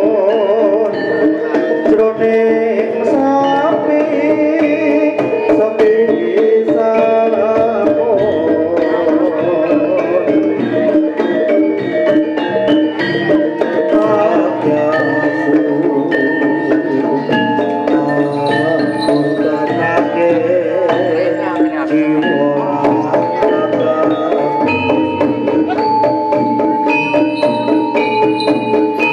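Javanese gamelan music playing continuously: hand drums beat against ringing bronze metallophones and held melodic notes.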